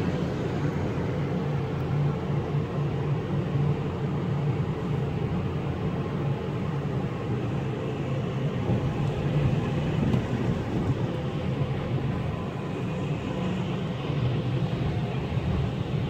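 Car driving on a wet highway, heard from inside the cabin: a steady drone of engine and tyre noise on the wet pavement.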